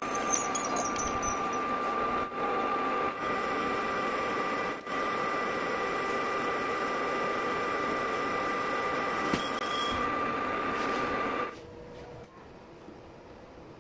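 Metal lathe running with a steady whine as it drills and then bores into the end of a steel bar, broken by a few short gaps. About three-quarters of the way through the cutting noise stops and only a much quieter low hum is left as the spindle stops.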